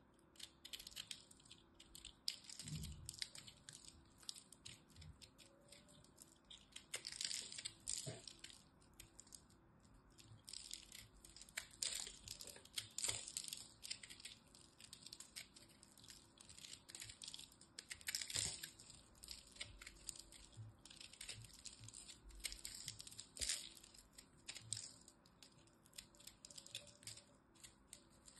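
Utility knife blade cutting into a ball of pressed, dry soap crumbs: crunchy crackling and scraping in irregular runs, with a few louder crunches along the way.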